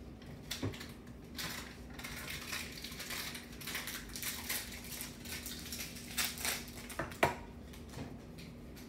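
Crayon scratching on paper in quick rubbing strokes, starting after a second or so, with one sharp knock about seven seconds in.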